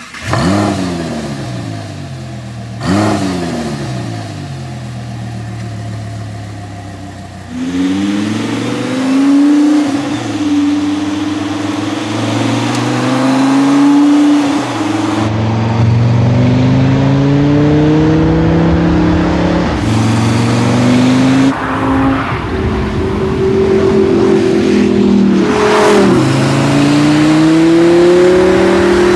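Audi R8's 5.2-litre FSI V10 with an Akrapovic slip-on exhaust starting with a sharp flare of revs that falls back, then a second rev blip about three seconds in. After that it accelerates hard, the pitch rising and dropping again at each of several upshifts.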